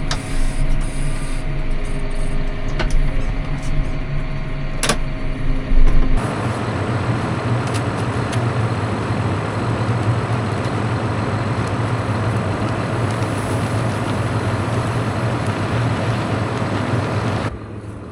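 A vehicle running with a steady low drone. The sound changes about six seconds in to a denser, rougher noise, and drops off sharply near the end.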